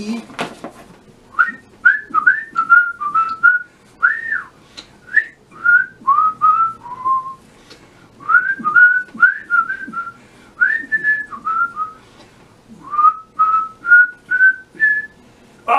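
A person whistling a tune in phrases of quick, short notes with small slides up and down. There is a brief pause about halfway through and another near three-quarters of the way.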